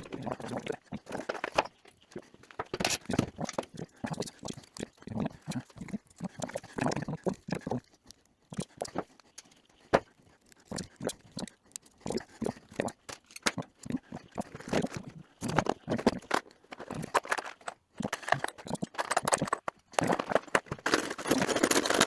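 Hand tools and metal motorcycle parts knocking and clattering irregularly as parts are taken off the frame during a strip-down.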